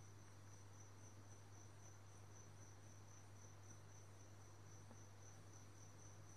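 Near silence: a faint, high insect chirring that pulses about three times a second, over a low steady electrical hum.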